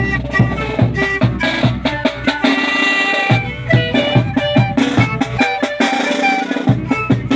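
Zampoña (Andean panpipe) ensemble playing a tune in many short overlapping pipe notes, with a large bass drum beating a steady rhythm.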